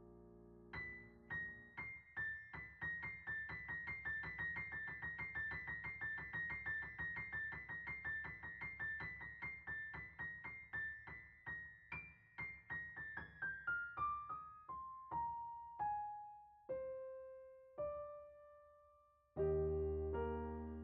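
Background piano music: a quick run of repeated high notes that slows and steps down in pitch, then fuller chords come in near the end.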